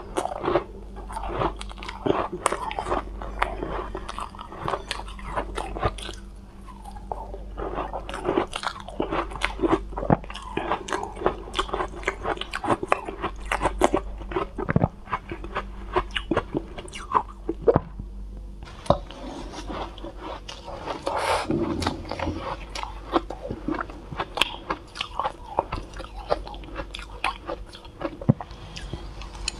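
Close-miked biting and chewing of soft cotton ice, a dense run of small crisp crunches with a short lull about two-thirds of the way through.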